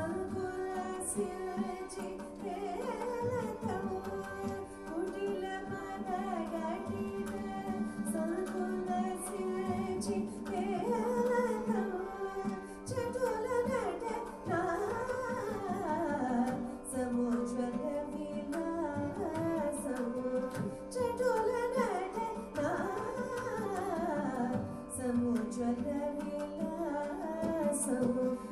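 Indian devotional song in Carnatic style: a voice singing an ornamented, gliding melody over a steady drone, with tabla.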